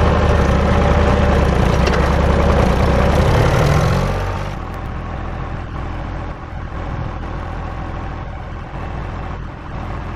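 Tractor engine running steadily at working speed, then dropping to a quieter steady run about four and a half seconds in.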